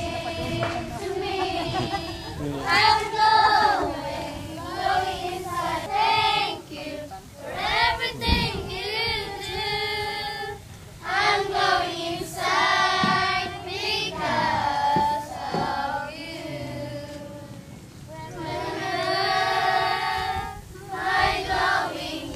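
A group of young girls singing a song together, in short sung phrases with brief breaks between them.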